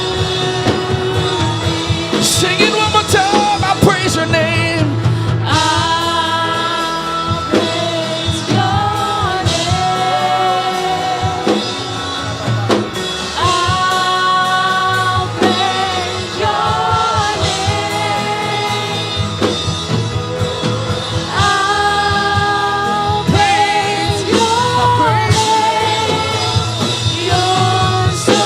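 Live church worship music: a band playing with a singer holding long, wavering notes.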